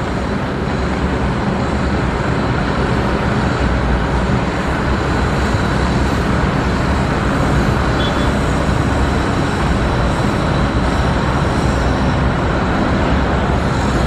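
Steady road traffic noise: vehicle engines and tyres with a low rumble, growing slightly louder in the first few seconds.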